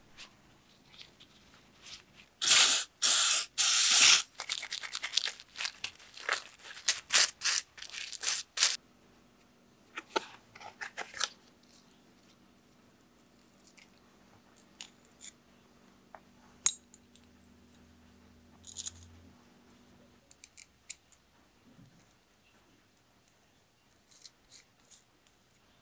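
A rag rubbed hard over small metal bike brake parts: loud scrubbing strokes for a couple of seconds, then a run of lighter rubs. After that come faint clicks and taps of the small parts being handled and fitted together.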